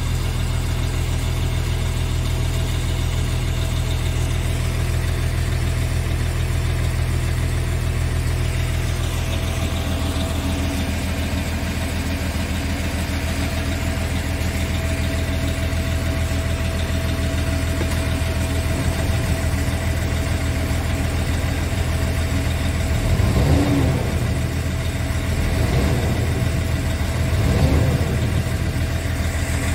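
Scania S tractor unit's diesel engine idling steadily, heard from inside the cab, with a few brief louder bumps near the end.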